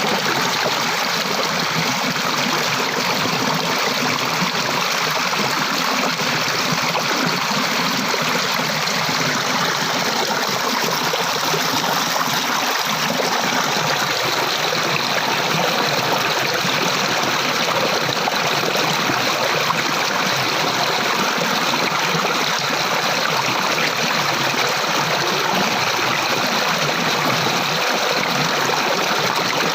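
Water flowing steadily over rocks in a stream, a continuous even rush with some trickling.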